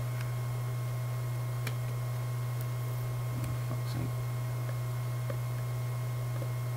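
A steady low electrical hum with a few faint higher steady tones runs throughout. Over it come a few faint clicks and crinkles of fingernails picking at the plastic film wrap on a box.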